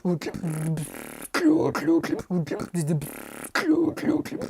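Human beatboxing: a fast pattern of sharp mouth-made percussive hits, with hummed tones between them that bend and wobble in pitch.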